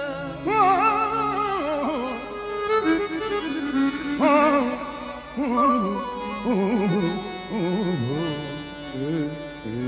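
Sufi devotional song: a male voice sings long ornamented runs with vibrato, without clear words, over a steady instrumental accompaniment.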